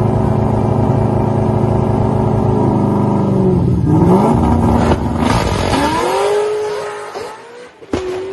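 Supercharged stick-shift 2003 Mustang SVT Cobra drag car holding a steady high rev on the starting line, then launching. About four seconds in the pitch dips and climbs as it leaves the line, with a sudden burst of noise. The engine fades as the car pulls away down the track.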